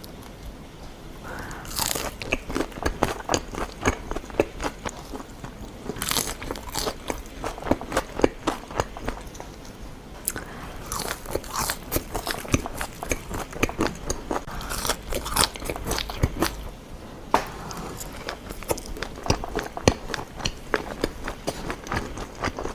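Close-miked mukbang eating: crunchy food being bitten and chewed, a dense run of crackling crunches with a louder bite every few seconds.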